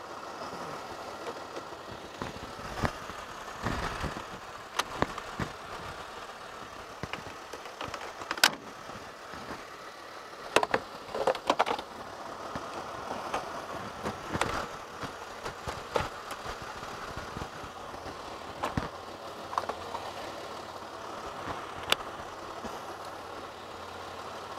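A car engine idling steadily, with scattered sharp clicks and knocks over it.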